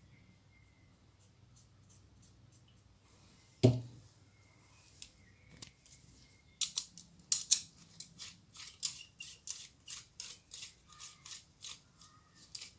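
Small steel parts of a lathe chuck jaw and a hex key being handled on a bench: quiet at first apart from one sharp knock, then, about halfway, a run of quick, irregular metallic clicks and ticks.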